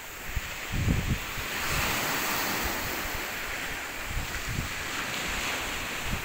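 Small waves breaking and washing up a pebbly beach in a steady rush that swells about a second and a half in. Wind buffets the microphone with a few low thumps, the strongest about a second in.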